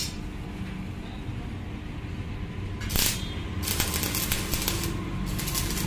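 Stick (arc) welding a corner joint of a steel frame: the electrode strikes an arc about three seconds in, then crackles and sizzles in short bursts. A steady low hum runs underneath.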